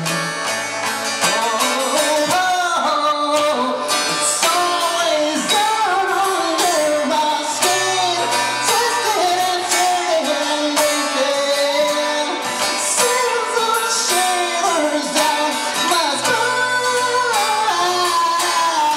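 A man singing into a microphone while strumming an acoustic guitar, the voice holding long notes that slide up and down in pitch.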